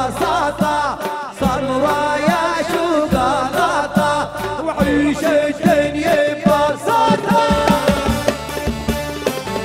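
Loud Arabic party music: a wavering, ornamented melody over a steady, fast drum beat.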